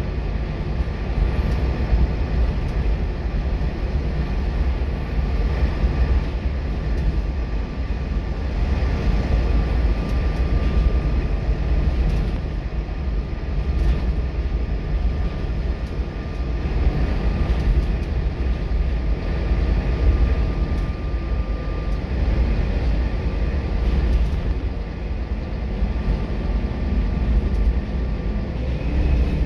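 Scania K230UB bus's five-cylinder diesel engine and road noise heard from inside the saloon while the bus drives along, a steady deep rumble with a thin whine that fades about two-thirds of the way in and a few faint rattles.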